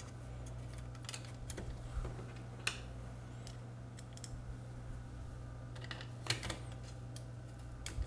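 A handful of light plastic clicks and taps as a keypad's circuit board is pressed and seated into its plastic housing, over a steady low hum.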